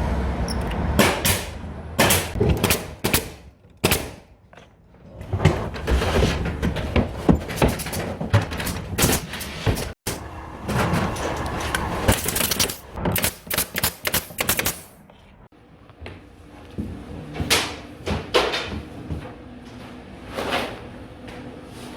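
Sheets of core plywood being handled during interior carpentry: repeated wooden knocks, clacks and thumps of varying loudness, with a couple of quieter stretches.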